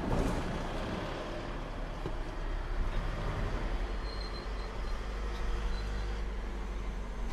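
A car driving, heard from inside the cabin: a steady low engine and road rumble, with a few faint high peeps about four seconds in.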